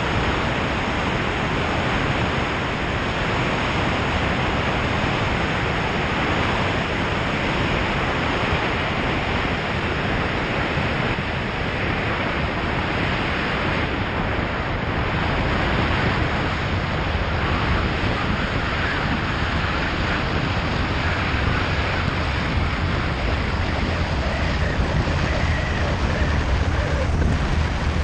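Steady wind rushing over the microphone of a camera mounted outside a Cessna 182, with the plane's engine underneath, as it lands and rolls out on a dry lakebed. A low rumble grows louder in the last few seconds.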